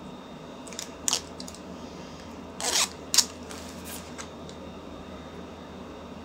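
Hands handling small plastic parts and tape: a few light clicks and knocks about a second in, a short scraping rustle just under three seconds in, then more clicks and fainter taps.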